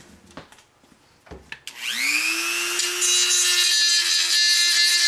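Dremel rotary tool starting up about a second and a half in, its pitch rising to a steady high whine, then grinding out a countersink for a screw head, louder from about three seconds in. A few light clicks come before it starts.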